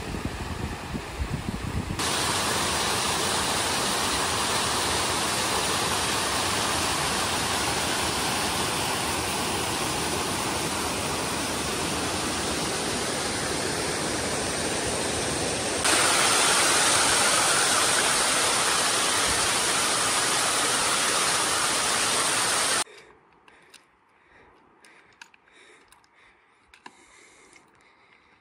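Meltwater mountain stream rushing over rocks, a steady loud rush. About 16 s in it gets louder and brighter. About 23 s in it cuts off abruptly, leaving near quiet with faint scattered ticks.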